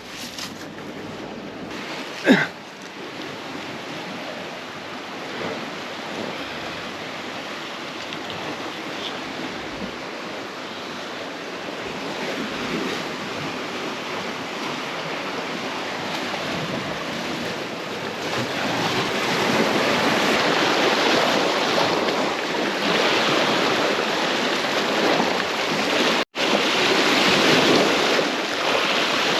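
Sea waves washing against rocks, with some wind on the microphone; the surf grows louder a little past the middle. A single sharp knock with a falling swish comes about two seconds in.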